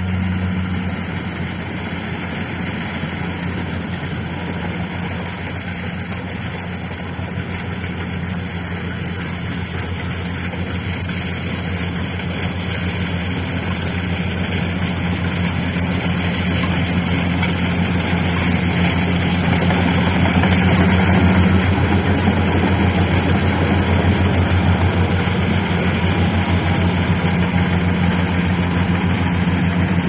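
Rice combine harvester's engine running steadily while it cuts, a deep even hum that grows louder as the machine comes closer, loudest about two-thirds of the way through.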